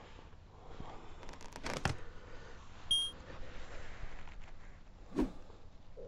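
A single short, high electronic beep about halfway through, from the camera and flash setup. It comes among faint clicks of handling the gear, with one sharper click near the end.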